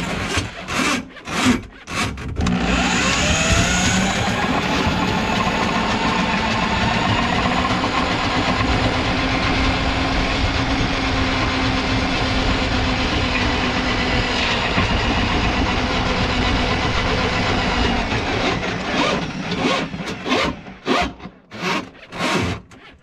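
Drum drain auger running, its cable spinning in a kitchen sink drain line clogged with grease: a few short on-off runs, then a steady run of about fifteen seconds with the motor's pitch wavering, then short bursts again near the end.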